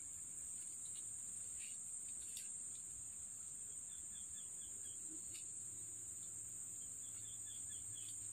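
Forest insects droning on one steady high pitch, with faint runs of quick chirps twice, about halfway through and again near the end.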